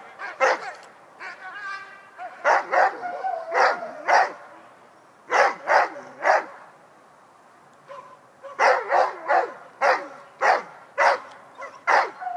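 A dog barking repeatedly in short runs of two to four barks, with a pause of about two seconds in the middle.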